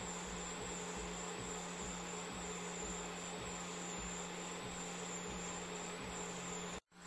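CoreXY 3D printer running while it prints a first layer, a steady whirring hiss of its fans and motion with a constant low hum. The sound drops out for a split second near the end.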